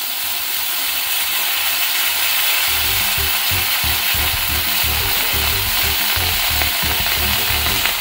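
Ice cubes and melting butter sizzling on a heated iron sizzler plate: a loud, steady hissing sizzle as the ice turns to steam on the hot metal.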